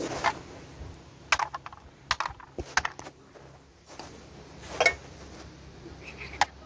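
Irregular sharp knocks, about eight over several seconds, a few with a brief metallic ring: a small blade chopping into kindling wood.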